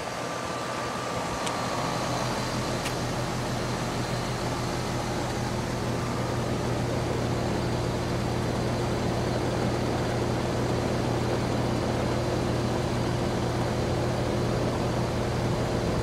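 Rheem RP1460AJ1NA outdoor central air-conditioning unit running: the steady rush of its condenser fan over a constant low hum.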